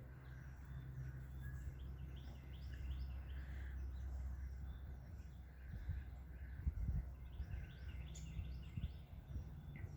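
Wild birds chirping and calling on and off over a steady low rumble, with a few low thumps about six to seven seconds in.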